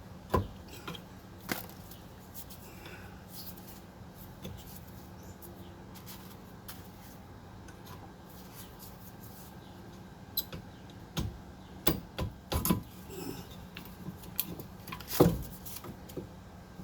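Hand tools and rear brake parts being handled during brake disassembly: scattered knocks and clicks, a single sharp one at the start, then a cluster over the last six seconds with the loudest knock near the end.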